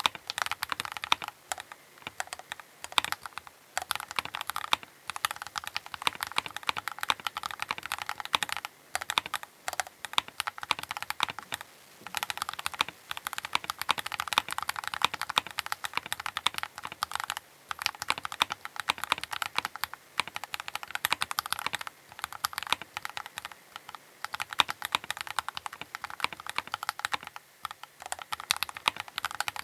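Continuous fast typing on a Keychron K8 Pro mechanical keyboard: a dense run of key clicks with a few short pauses between bursts.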